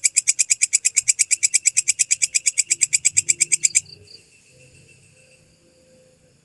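Walang kecek (belalang kecek) bush cricket calling: a loud, fast, even train of high, dry pulses, about ten a second, that stops abruptly a little under four seconds in.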